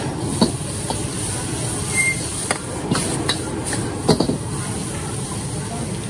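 A gas wok burner running at full flame while noodles sizzle in the wok, with a metal ladle clanking and scraping against the wok about six times.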